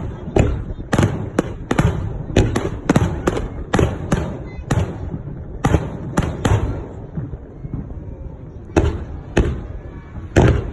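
Fireworks bursting in a fast string of sharp bangs, two or three a second, then a short lull and three more single bangs near the end.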